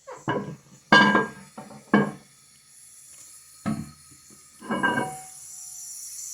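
Ceramic toilet tank lid being handled: a handful of hard clinks and knocks, each with a short ringing tone. A steady hiss comes in near the end.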